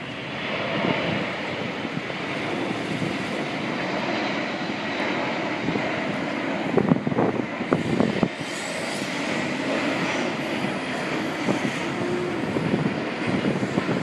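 Airbus A380's four turbofan engines (Engine Alliance GP7200) at approach power, a steady jet rumble and roar as the airliner passes low overhead on final approach with its gear down. A faint high whine wavers in pitch in the second half, and a few short bumps come about seven to eight seconds in.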